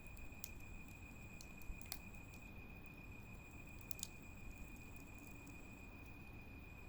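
Faint crackling of a wood fire: a handful of sharp pops, the loudest about two seconds in and again about four seconds in, over low steady background noise.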